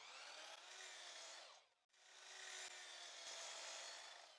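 Faint sound of a miter saw blade cutting through a pine board, in two stretches with a short break a little under two seconds in.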